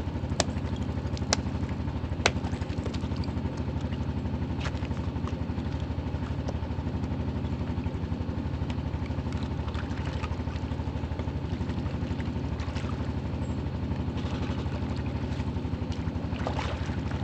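A vehicle engine running steadily at low speed, with a few sharp knocks or clanks in the first few seconds.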